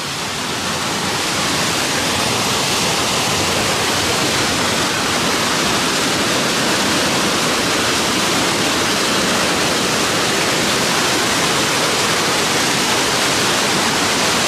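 Twin Falls, a large waterfall, rushing steadily over rock; the sound grows louder over the first couple of seconds as the falls are approached, then holds steady.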